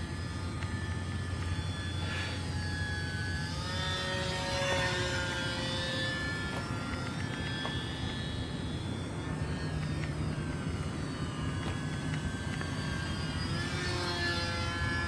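Micro electric radio-controlled E-flite UMX Gee Bee R2 flying overhead: its motor and propeller whine, gliding up and down in pitch as it passes and changes throttle, loudest about four to five seconds in and again near the end.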